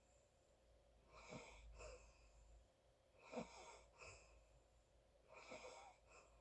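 Faint snoring breaths of a sleeping person, three in a row about two seconds apart, each followed half a second later by a shorter breath sound.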